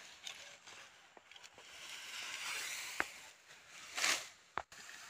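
Faint rustling of tall grass as someone moves through it, with a few sharp clicks and a short, louder swish about four seconds in.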